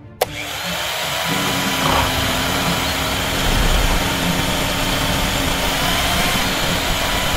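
A click as the switch is pressed, then a small motor runs steadily, spinning a toy tractor's spiked drill head against a rock in sand.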